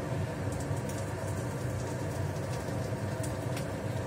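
Kitchen range hood fan running with a steady low drone, with a few faint light ticks over it.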